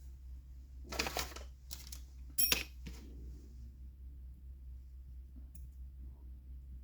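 A few short rustles and clatters of small parts or tools being handled, with one sharp metallic clink that rings briefly about two and a half seconds in.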